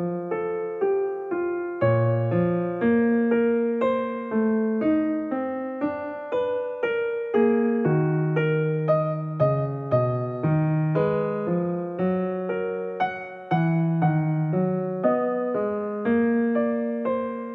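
Background music: a solo piano playing a calm melody over chords, each note struck and then fading.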